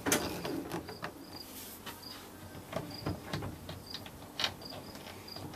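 Scattered light clicks and knocks of plastic parts and fasteners being handled, with short high chirps repeating about every half second, like an insect chirping in the background.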